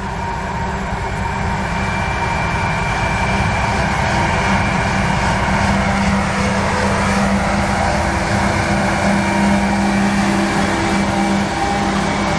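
2TE116 two-section diesel locomotive running as it approaches and passes close by: a steady engine hum and rumble, growing louder. Faint, regular clicking of wheels on the rails comes in from about a third of the way in.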